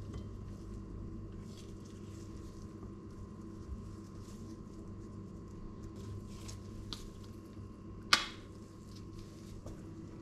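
Soft handling sounds of gloved hands moving a bowl and a bottle on a kitchen counter, over a steady low hum. One sharp click about eight seconds in stands out above the rest.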